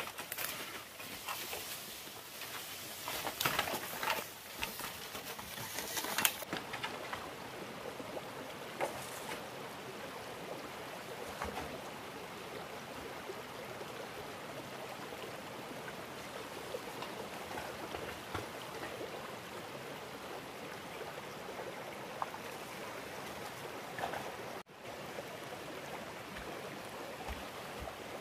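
A stream of water flowing steadily, with irregular knocks and rustles over roughly the first six seconds.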